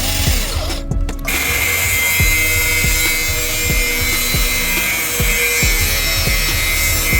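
Background music with a steady bass beat, its upper range dropping out briefly about a second in.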